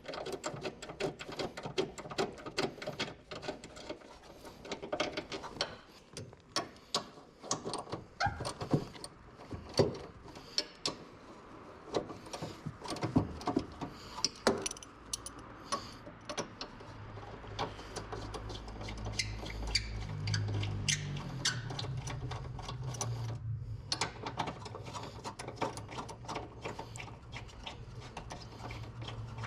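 Hand tools working on a car's engine-bay parts: irregular metal clicks, clinks and knocks, some in quick runs. A low steady hum comes in a little past halfway, breaks off briefly, then carries on.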